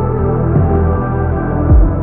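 Pop song playing muffled, as if heard through a club bathroom stall wall: the high end is cut away, leaving sustained tones and bass, with a deep low hit near the end.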